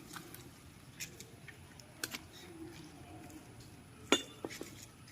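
Scattered light clicks and clinks of small hard objects being handled, with a sharper knock about four seconds in.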